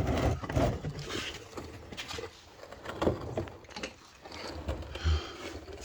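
An oil drain pan scraping as it is pushed along the ground, followed by scattered light knocks and handling noises.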